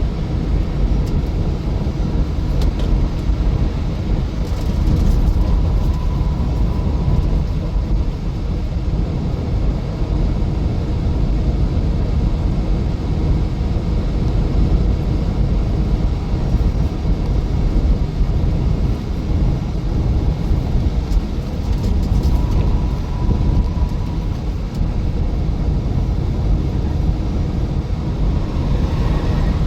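Steady low rumble of a vehicle driving, with road and engine noise heard from inside the vehicle.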